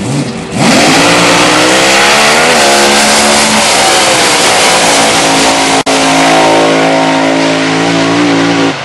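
Supercharged alcohol-burning 484 Keith Black Hemi in a front-engine dragster launching about half a second in, very loud, its pitch climbing fast as it accelerates and then levelling off and dropping as it goes by. The sound breaks for an instant just before six seconds, then a steady high engine note carries on and cuts off abruptly near the end.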